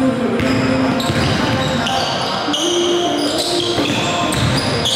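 Basketball dribbled on a hardwood gym floor during play, with short high sneaker squeaks from players moving on the court, in a large echoing gym.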